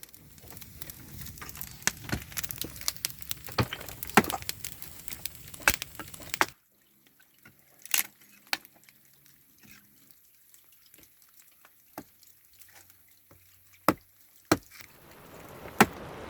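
Wood campfire crackling with many sharp pops over a hiss. About six and a half seconds in, the sound drops abruptly to quieter, scattered pops, and a steady hiss builds again near the end.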